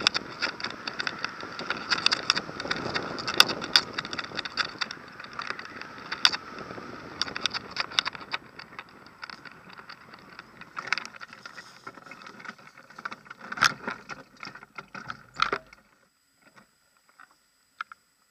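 Air rushing past a hang glider's wing-mounted camera in flight, with a rapid clatter of sharp clicks as the camera and glider frame rattle. The rushing and clicks thin out as the glider slows close to the ground, then stop suddenly about 16 seconds in, leaving only a few faint ticks.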